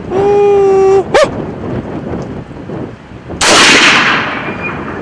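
A single rifle shot from a 6.5 Creedmoor about three and a half seconds in, with a short ringing tail. Before it comes a loud held call lasting about a second that ends in a short sharp yelp.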